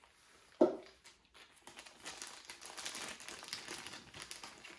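Plastic accessory bags crinkling as they are handled: a continuous rustle of many small crackles from about a second in until near the end. It is preceded by one short, louder thud.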